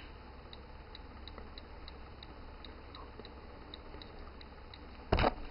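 Faint, even ticking, about three ticks a second, over a low steady hum. A short, loud knock comes near the end.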